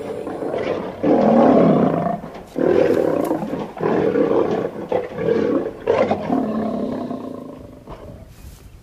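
A large animal roaring: a series of five or six loud roars, each about a second long, that grow shorter and fade away near the end.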